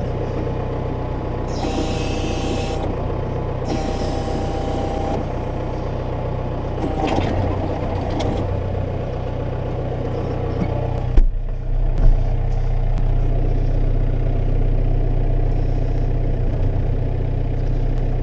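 Tractor engine running steadily, heard from inside the cab, with two short hisses and a whine early on. About eleven seconds in a sharp clunk comes as the cab door opens, and the engine then sounds louder and deeper.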